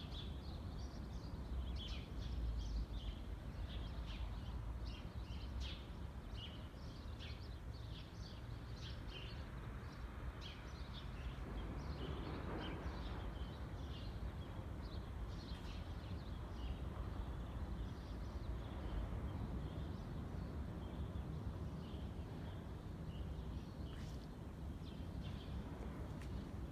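Small birds chirping, short high calls coming thick and fast in the first half and more sparsely later, over a steady low background rumble.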